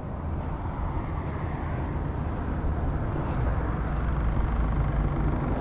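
Steady low engine rumble with a faint hum, slowly growing louder.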